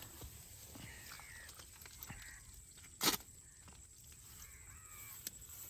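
Quiet outdoor background with a few faint distant calls, and one sharp crack about three seconds in.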